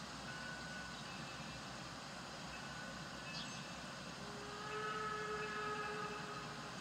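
Distant train: a steady low rumble, with its horn sounding one held chord of several notes from about four and a half seconds in, lasting about a second and a half.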